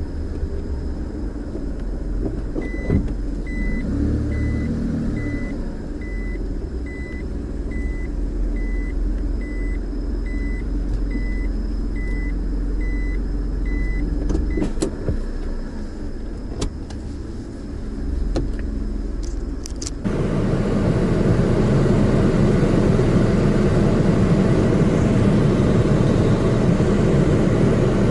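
Car running at low speed with a steady low rumble. A short electronic beep repeats about one and a half times a second for the first half. A few sharp clicks follow, then about two-thirds through a louder rushing noise sets in suddenly and holds.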